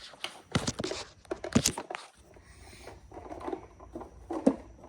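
Tools and toolbox organizer cases being handled: irregular clicks and knocks with rustling between them, the sharpest knocks about half a second, a second and a half, and four and a half seconds in.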